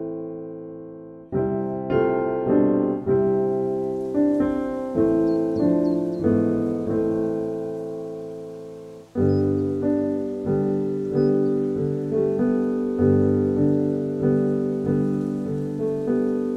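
Background piano music: single notes and chords struck about twice a second, each fading away, with a short break about a second in and a fuller passage with deeper bass notes from about nine seconds on.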